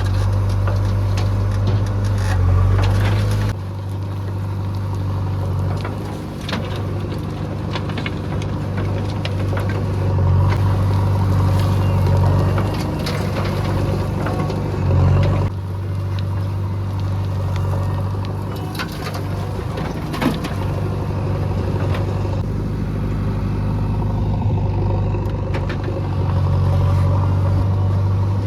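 Heavy diesel engine running steadily, its note shifting a few times, with scattered knocks and clatter.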